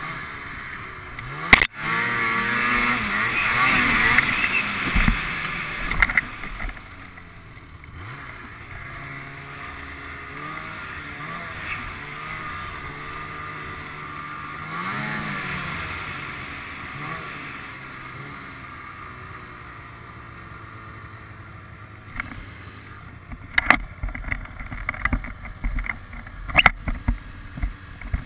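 Ski-Doo snowmobile engine revving and easing off as it is ridden, its pitch rising and falling, loudest in the first few seconds and then running more quietly. There is a sharp knock a second or two in, and several more near the end.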